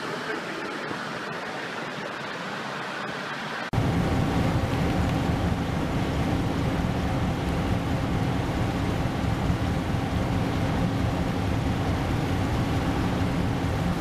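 Wind and surf rushing. About four seconds in it cuts suddenly to a louder, steady rush of churning water and wind with a low steady hum under it.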